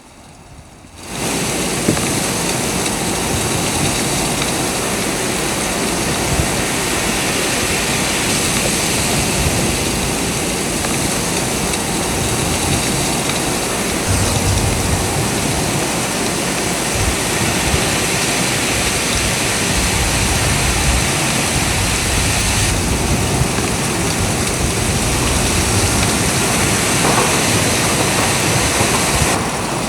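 Strong blizzard wind blowing steadily and buffeting the microphone, with a rumbling low end that surges in gusts. It starts suddenly about a second in.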